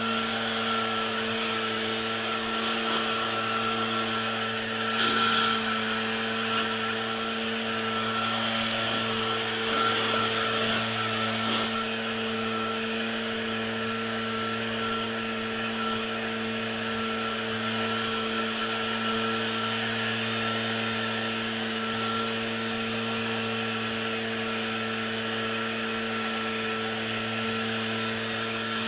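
Small gasoline engine of lawn-care equipment running steadily at full throttle, with a steady high whine over a hiss. It swells briefly a couple of times, about five and ten seconds in.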